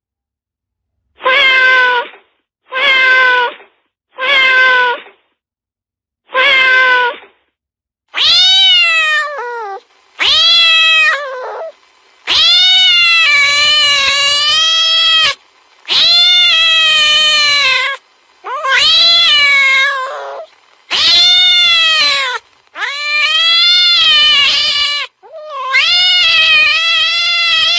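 Domestic cat meowing and yowling in a fierce, scary-sounding way. It starts with four short meows, then from about eight seconds in breaks into a run of long, drawn-out wails, each a couple of seconds long, rising and then falling in pitch.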